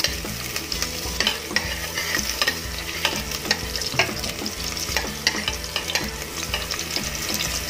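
Sliced red onions sizzling in hot oil in a stainless steel pot while a spatula stirs them, scraping and clicking against the pot many times at an irregular pace.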